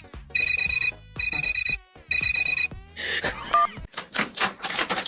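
An electronic ringtone or alarm beeping: four evenly spaced high ringing tones, each about half a second long. Then a short noisy swish, and from about four seconds in a fast run of clicks.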